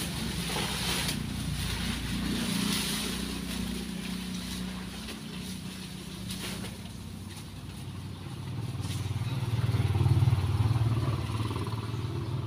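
Dry leaves and branches rustling as they are scooped up and carried, over a steady low engine hum that swells louder about ten seconds in, like a motor vehicle passing.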